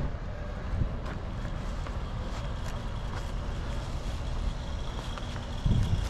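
Steady low outdoor rumble, with a short thump near the end.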